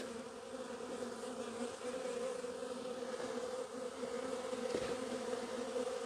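Many honey bees flying and buzzing in a steady, even hum.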